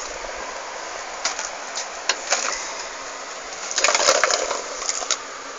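Scattered small clicks and crackling, with a denser patch of crackling about four seconds in.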